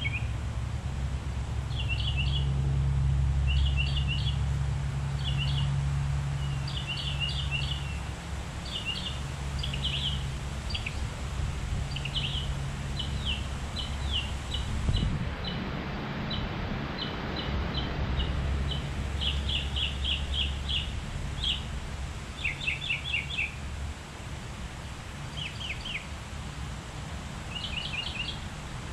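Songbirds chirping in quick clusters of several short notes, repeating throughout, over a steady low rumble. A swell of rushing noise rises and fades about halfway through.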